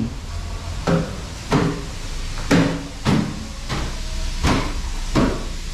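Cleaning strokes: about seven short swishing scrapes, one every half second to a second, over a low steady hum.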